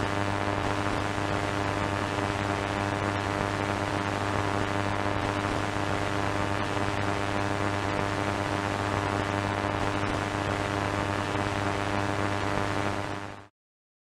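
Steady hiss of broadcast static over a low buzzing hum: a dead, lost signal. It cuts off suddenly near the end.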